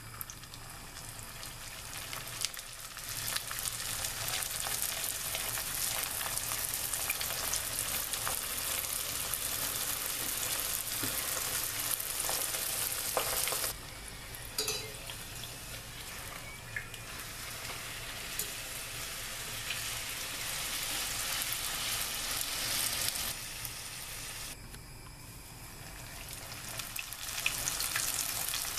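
Cheese-filled dough pastries deep-frying in hot vegetable oil in a stainless steel pot: a steady sizzle that starts as the first piece of dough goes into the oil. It falls off suddenly about halfway through and again near the end, each time building back up.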